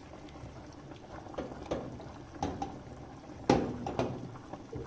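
Silicone spatula stirring a bubbling béchamel sauce in a stainless steel pot: irregular soft scrapes and taps against the pot over the sauce's bubbling, the loudest stroke about three and a half seconds in.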